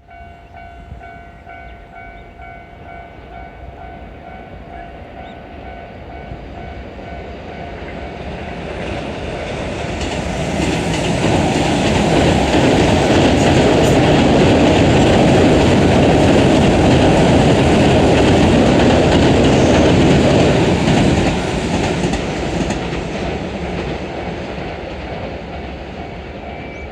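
Japanese level-crossing bell ringing its steady repeating 'kan-kan' while two Keihan limited express electric trains pass each other over the crossing. The train rumble and rail noise build from about six seconds in and are loudest from about eleven to twenty-one seconds, then fade, leaving the bell audible again near the end.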